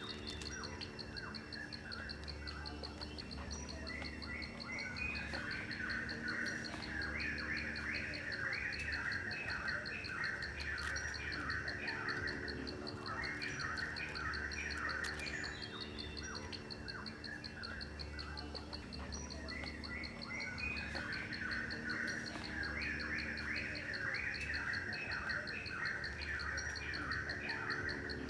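Birds chirping in bouts every several seconds over a steady, fast-pulsing high insect trill.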